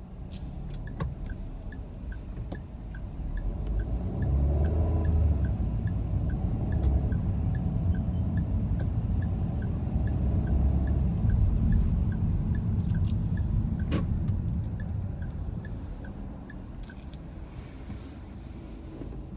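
Car cabin: low engine and road rumble that swells from about four seconds in and fades again near the end, with a steady ticking of about two to three ticks a second, typical of a turn-signal indicator, and one sharp click about fourteen seconds in.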